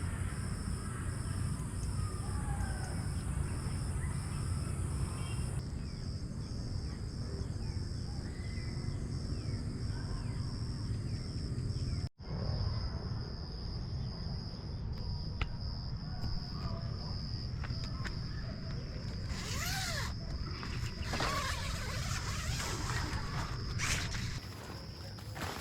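Outdoor ambience: an insect's steady, evenly pulsing high-pitched chirp over a continuous low rumble, with some rustling near the end.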